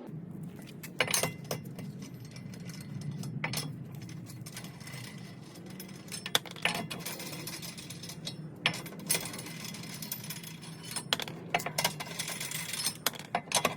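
Metal hand tools and parts clinking and clattering in scattered sharp clicks, busier near the end, over a steady low hum.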